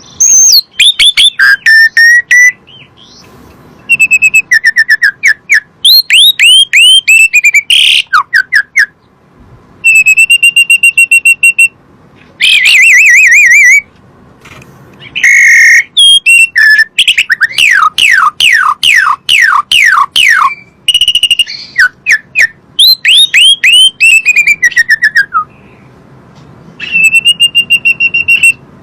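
Javan pied starling (jalak suren) singing loud whistled phrases: falling slurs, quick runs of down-slurred notes, and held wavering whistles, separated by short pauses.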